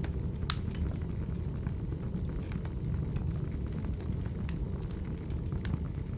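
Wood fire burning: a steady low rumble with scattered sharp crackles and pops, one louder pop about half a second in.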